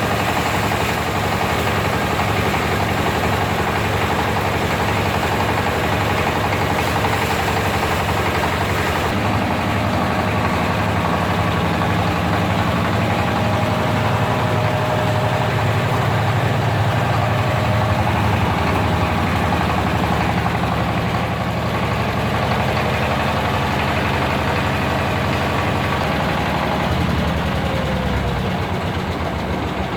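Disk mill running steadily while milling dry corn into flour, its drive giving a continuous low machine hum. About nine seconds in the high hiss drops away, and the low hum shifts again near the end.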